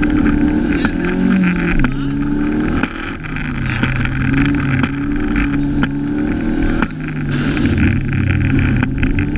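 Fiat Cinquecento 1400 rally car's engine heard from inside the cabin, revving up and dropping back in pitch as it accelerates and shifts. It lifts off briefly about three seconds in and again about seven seconds in.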